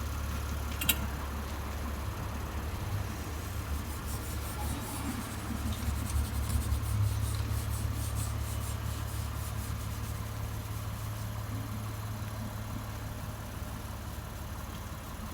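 200-series Toyota Crown Athlete's V6 engine running steadily at idle, with a single sharp click about a second in.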